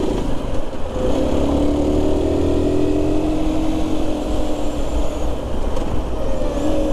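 Aprilia RS 125's single-cylinder four-stroke engine running while the motorcycle rides along in traffic, its pitch easing down slightly and then rising again near the end. Heavy wind rumble on the microphone.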